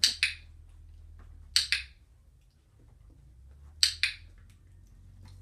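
Dog-training clicker clicked three times, about two seconds apart, each a quick double click, marking the dog's right move for a treat.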